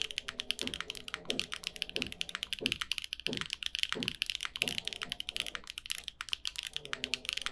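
Typing on a Neo80 mechanical keyboard with lubed Gateron Azure Dragon linear switches, an aluminium plate and GMK keycaps: a rapid, steady stream of keystroke clacks with occasional deeper strokes.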